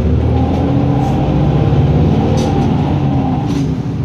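City bus engine and road noise heard from inside the cabin while driving; the engine note climbs through the first couple of seconds and then falls back.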